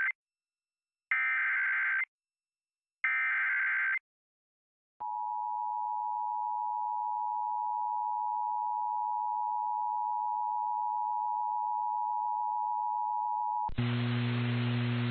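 Emergency Alert System header data bursts: two roughly one-second bursts of rapid warbling tones, a second apart. After a one-second pause comes the EAS two-tone attention signal, a steady dual tone held for about eight and a half seconds. Near the end it cuts off abruptly into a loud, sustained sound with low tones.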